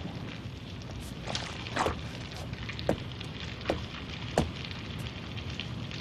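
Slow footsteps: about eight sharp single taps, spaced roughly half a second to a second apart, over a faint steady hum.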